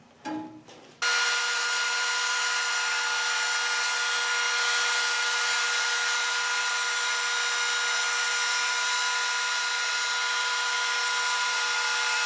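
Band saw running and slicing through a block of polypropylene: a steady whine with a few held tones over a hiss, starting abruptly about a second in. The plastic is melting and clogging the bottom of the cut, which makes the cut rough and the feed hesitate.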